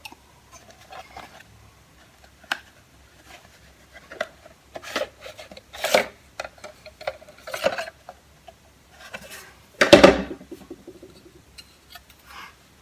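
A plastic reel of Scotch 222 reel-to-reel tape being slid out of its case and handled: scattered rubbing, scraping and light plastic clacks, with one much louder thump about ten seconds in.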